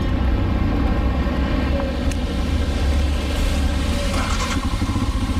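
Royal Enfield Himalayan's 411 cc single-cylinder engine running with a steady low rumble; its even firing beat comes through more plainly near the end.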